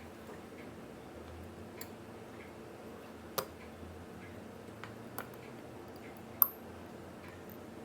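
Faint, sparse clicks of watchmaker's tweezers and small steel parts handled at the bench while the mainspring and arbor are taken out of a Seiko 6106C barrel. There are a few separate sharp ticks, with the loudest and brightest click a little past six seconds, over a faint steady hum.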